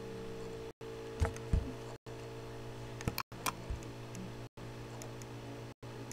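A few clicks and soft knocks from a computer mouse being handled, over a steady electrical hum. The sound cuts out briefly about every second and a quarter.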